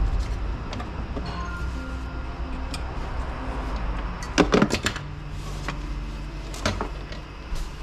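Clicks and rattles of pliers and the plastic recoil starter housing being handled while new starter rope is threaded through it, with a quick cluster of sharp clicks about halfway through and another single click near the end, over a steady low rumble.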